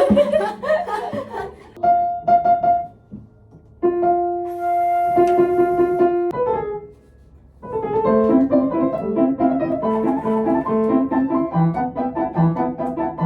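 Piano: a few single held notes and chords with pauses between them, then after a short break a flowing, even passage of notes.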